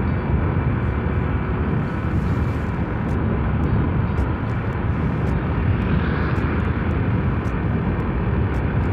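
Steady rush of wind and road noise from a motorcycle being ridden, with its engine running underneath.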